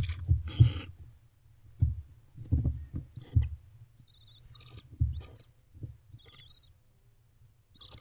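Barn owls in a nest box: two short raspy hisses near the start, then low bumps and scuffling as the owlets shift about against the box, with a few brief high chittering calls around the middle.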